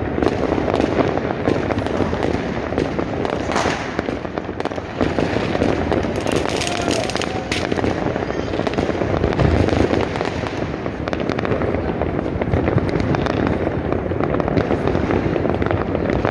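Fireworks and firecrackers going off all over a city at once: a dense, continuous crackle and popping of many distant blasts, with a few louder bangs standing out.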